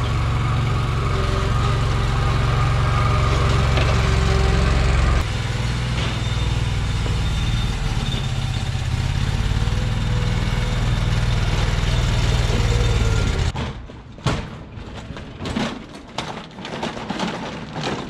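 Riding mower's engine running steadily while cold with the choke on; its sound shifts about five seconds in, and it shuts off abruptly about 13 seconds in. Irregular knocks and rattles follow as a walk-behind machine is pushed.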